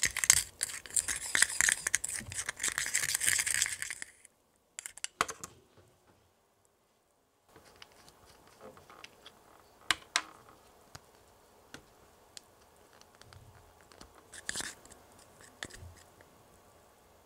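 A small plastic spatula stirring and scraping candy mix in a little plastic cup, a fast scratchy rasp for about the first four seconds. After a short silence come scattered light plastic clicks and taps from handling a small plastic bottle and its cap, with a brief scrape of the spatula against the cup near the end.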